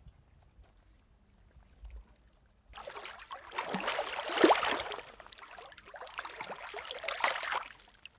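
Lake water splashing and sloshing, starting suddenly about three seconds in after a quiet stretch, loudest near the middle, then easing off just before the end.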